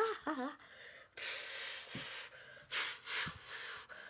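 A short voiced exclamation that glides up and down, then a series of loud breathy exhales or huffs, about four of them, each lasting half a second to a second, with a couple of soft low thuds in between.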